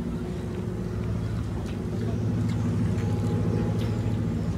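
A steady low engine hum, growing slightly louder about two seconds in.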